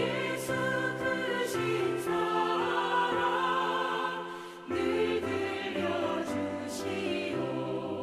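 Choir singing a hymn in Korean. The sustained notes fall back a little past halfway and a new phrase begins.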